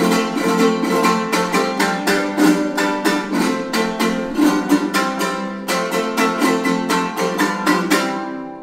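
Son jarocho string music: a jarana strummed in a fast, steady rhythm, about four strokes a second, over a deeper plucked instrument. The playing stops and dies away near the end as the piece finishes.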